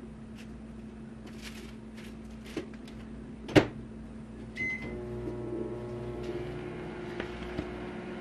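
Microwave oven running with a steady hum. A single sharp click comes about three and a half seconds in, then a short high beep about a second later. From about five seconds in the hum becomes a fuller, steady drone.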